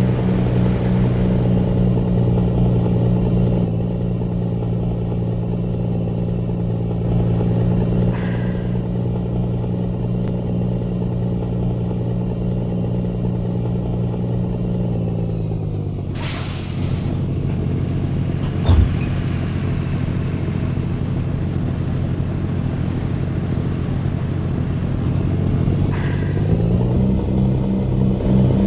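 Truck's diesel engine running steadily, its speed dropping about fifteen seconds in, with a short hiss just after and a single knock a few seconds later. The engine speed rises again near the end.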